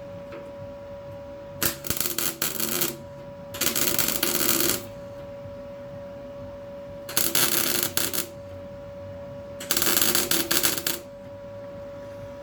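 Welder laying four tack welds on a steel repair patch on the car body: four separate crackling bursts of about a second each, over a steady hum.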